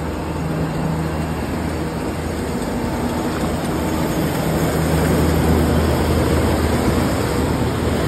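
Tractor-drawn potato harvester at work in wet soil: a steady engine drone under a continuous noise of the harvester's conveyors and dirt falling off, growing a little louder about halfway through.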